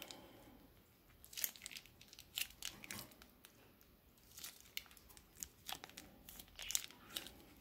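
Plastic dressing packet from a Caesar salad kit crinkling as it is squeezed by hand, a faint, irregular scatter of crackles.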